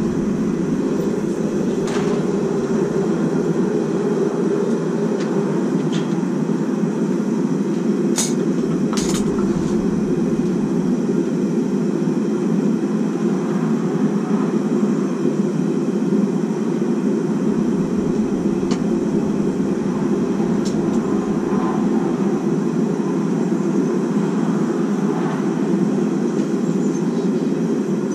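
Steady, even roar of a running forge, with a few light metal clinks now and then.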